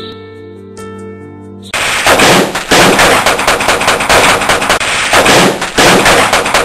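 Soft music, then rapid machine-gun fire that breaks in suddenly a little under two seconds in and keeps going, very loud, in long bursts with brief dips.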